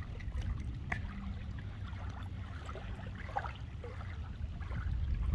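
Shallow water lapping and trickling over a gravel shoreline, with small scattered clicks and a steady low rumble underneath.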